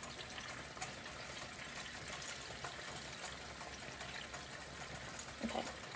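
Chicken pieces deep-frying in hot grease, a steady sizzle and bubble, with a light tick about a second in.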